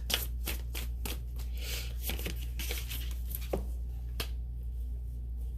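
Tarot cards being shuffled and handled, a run of quick papery clicks and rustles that stops about four seconds in, over a steady low hum.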